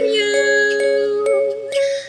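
Dubstep-style electronic music in a breakdown: held synth chords with a few light ticks and no deep bass, dipping briefly in level near the end.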